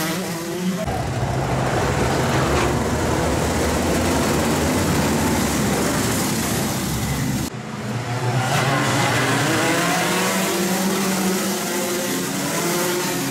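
Several racing go-kart engines running hard as the karts pass close by, their overlapping notes rising and falling as they rev out of a corner. The sound drops abruptly about seven and a half seconds in, then the engines pick up again.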